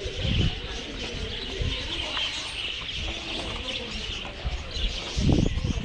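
A flock of small birds chirping and chattering continuously, with a couple of low bumps, one just after the start and one near the end.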